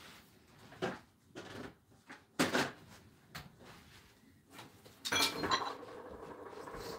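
Rummaging through craft supplies while looking for a paper trimmer: a few separate knocks and clatters, then a longer continuous rustling and sliding noise from about five seconds in.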